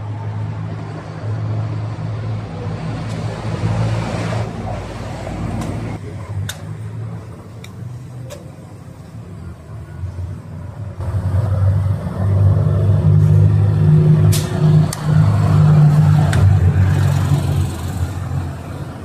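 Low rumble of a motor vehicle engine running close by on the street, growing louder about eleven seconds in. A few sharp clicks are scattered over it.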